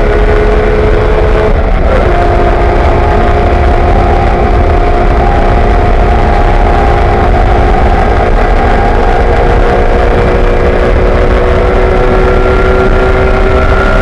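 BMW E46 M3 race car's straight-six engine under hard throttle, heard from inside the cockpit, with loud wind and road noise. The engine note drops with one upshift about two seconds in, then climbs slowly as the car keeps accelerating.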